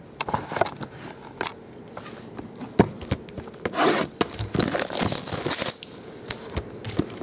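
Hands tearing and crinkling the packaging of a trading-card box, with scattered clicks and knocks. The tearing is densest from about four to six seconds in.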